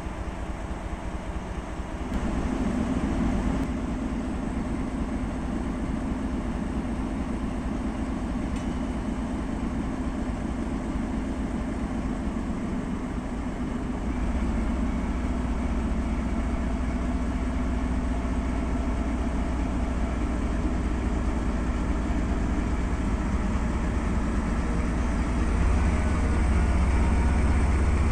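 DE10 diesel-hydraulic locomotive's V12 diesel engine running with a steady low drone, getting louder in steps about two seconds in, halfway through and again near the end.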